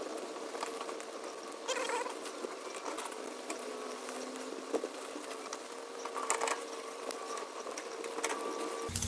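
Light, irregular crackling and pattering over a steady electrical-sounding hum.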